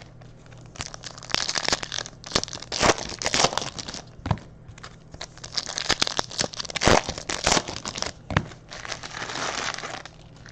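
Plastic trading-card pack wrappers being torn open and crinkled: a run of irregular crackles and short tearing rustles.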